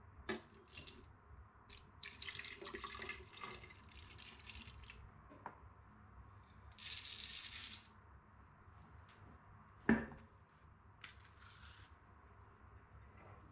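Milk poured from a cup into a plastic blender jar, splashing, then a short steady hiss as dry rolled oats are tipped in. A single sharp knock follows, and near the end a banana peel being pulled back.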